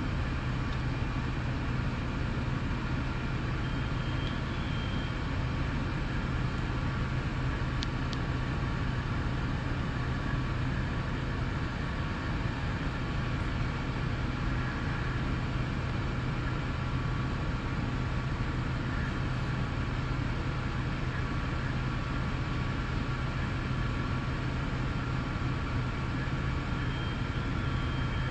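Steady low hum and rumble of large vehicle engines running, as from fire engines idling and pumping at a building fire. A faint short high tone sounds about four seconds in and again near the end.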